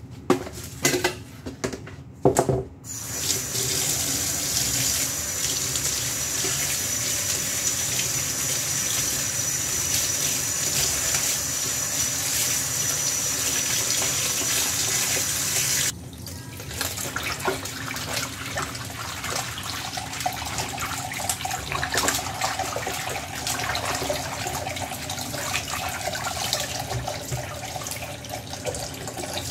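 Kitchen tap running steadily into a collapsible basin of water as vegetables are rinsed under it, after a few knocks at the start as the basin is handled. About halfway through the tap shuts off suddenly, leaving irregular splashing and sloshing as lettuce and spring onions are swished and shaken in the basin water.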